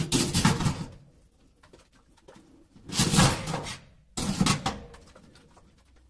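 Espresso machine's stainless-steel drip-tray grates clattering and scraping against a steel sink as they are moved, in three short bursts.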